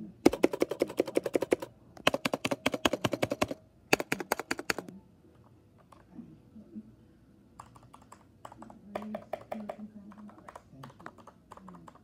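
Royal Kludge RK61 mechanical keyboard being typed on fast: three dense runs of rapid key clicks in the first five seconds, then lighter, sparser keystrokes in the second half.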